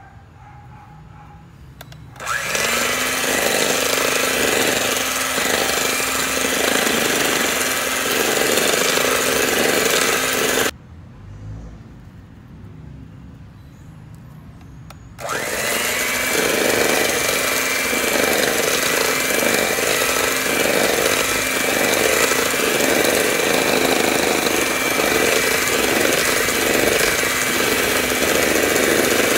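Electric hand mixer beating egg whites in a stainless steel bowl, a loud steady motor whir. It starts about two seconds in, cuts off near eleven seconds, and starts again around fifteen seconds, spinning up each time.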